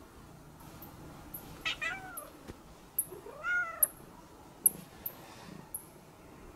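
A domestic cat meowing twice: a short meow, then a longer one that rises and falls in pitch. A few sharp clicks follow.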